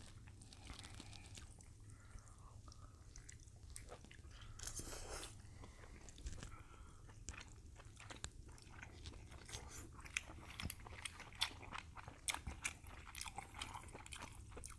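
Faint close-up eating sounds from king crab legs being eaten: chewing with many small clicks and crackles, more frequent in the second half.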